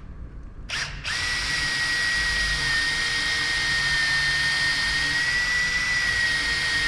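Cordless drill boring a pilot hole into wood: a short blip of the trigger, then the drill runs steadily with a high, even whine for about six seconds.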